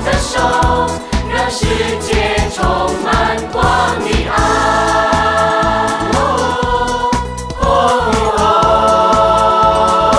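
Song with a choir of voices singing over a steady beat; the singers hold long notes through the second half.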